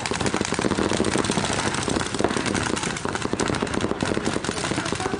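Paintball markers firing rapid strings of shots from several players at once, a dense run of pops at many shots a second that scarcely lets up.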